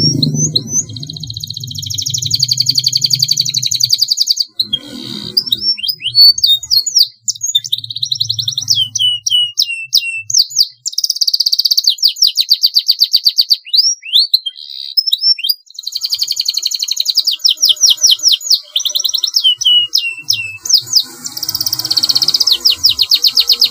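Domestic canary singing: long, rapid rolling trills alternating with runs of sharp downward-swept whistled notes.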